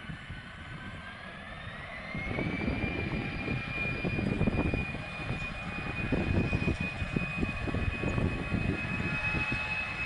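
Airbus A320's jet engines spooling up: a whine that rises in pitch over the first two or three seconds and then holds steady, over a low rumble that grows louder about two seconds in.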